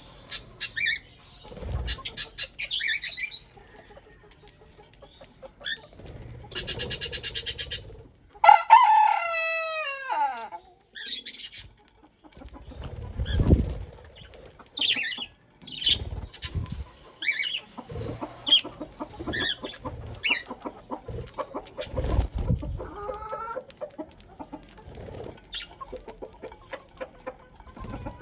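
Budgerigars chirping and chattering in short high calls, with a quick trill and a falling call near the middle, and a few low thumps.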